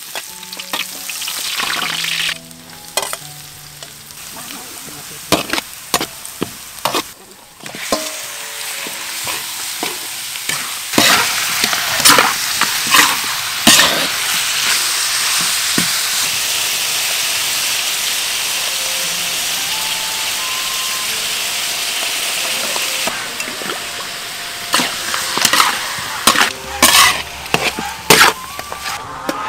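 Chopped garlic sizzling in hot oil in a steel wok, then chopped goose meat stir-frying in it: a steady loud sizzle, with sharp knocks and scrapes of the spatula against the wok, most of them about a third of the way in and again near the end.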